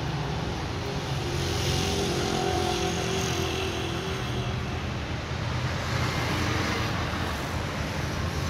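Steady low hum of a motor vehicle engine running, with street traffic noise that swells for a couple of seconds early on the walk.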